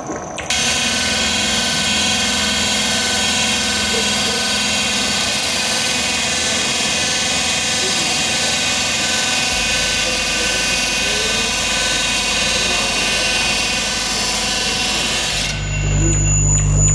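Loud electronic noise drone, a dense hiss threaded with many held high tones, cutting in abruptly about half a second in. Near the end it changes to a deep, low humming drone.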